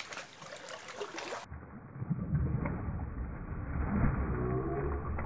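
Children splashing in a swimming pool: a hissy wash of splashing water, then about a second and a half in the sound suddenly turns dull and muffled, a low rumbling churn of water with faint muffled voices near the end.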